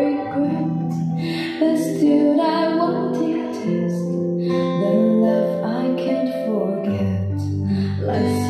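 A song with plucked guitar, played back through Polk Audio LS-50 floor-standing loudspeakers in a room; a deep bass note comes in near the end.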